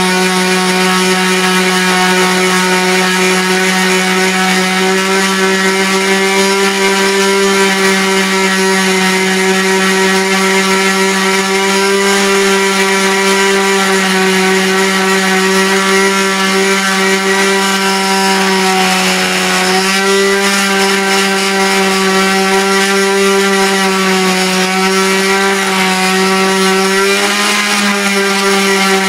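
Oscillating multi-tool with a saw blade cutting into a thick slab of wood: a loud, steady buzz with a strong hum. Its pitch wavers briefly about two-thirds of the way in and again near the end as the blade bites.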